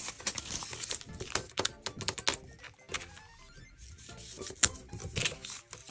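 Paper and clear packing tape being handled and pressed down by hand: crinkling and a run of small sharp clicks, with one louder click near the end.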